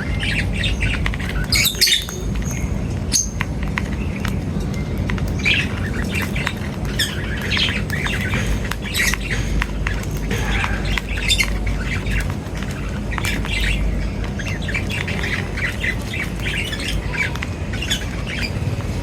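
Birds calling: a dense run of short chirps and calls, louder about two seconds in and again around eleven seconds in, over a steady low rumble.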